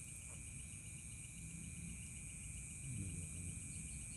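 Night chorus of crickets and other insects: a steady high trilling with a fast, even pulse.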